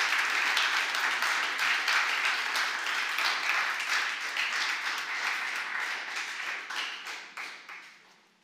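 Audience applauding, a dense patter of many hands clapping that thins out and dies away over the last two seconds or so.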